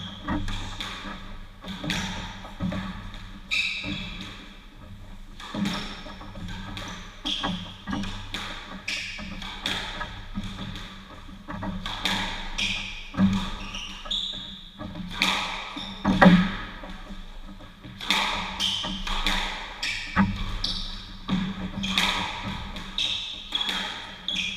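Squash rally: the ball smacking off racquets and the court walls in a run of sharp, echoing impacts about once a second, the hardest about two-thirds of the way through, with players' shoes squeaking on the wooden floor.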